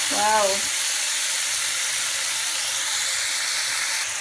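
Slices of spice-marinated beef frying in a little hot oil in a pan, a steady sizzle.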